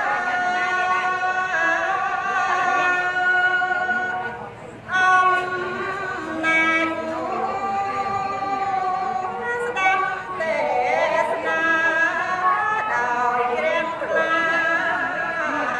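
A woman chanting Khmer smot, Buddhist verse sung solo, in long held notes that bend and waver; she breaks briefly for breath about five seconds in.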